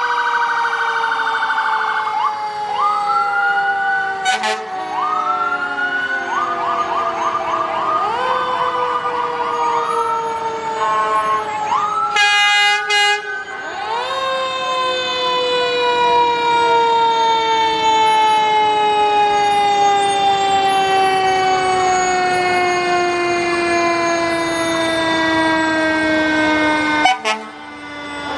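Fire truck sirens sounding together: one wail falls slowly and steadily in pitch, while other sirens repeatedly whoop upward and break into fast warbling stretches. A brief, louder, many-toned blast comes about twelve seconds in, and the sound briefly drops out near the end.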